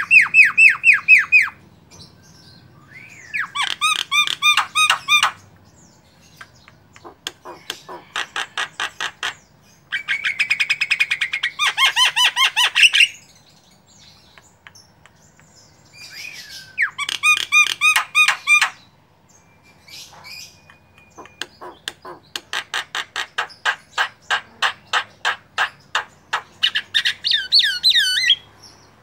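Javan myna (white-eyed jalak kebo) singing its varied song: about six phrases of fast, repeated notes a few seconds apart, the longest running for several seconds near the end.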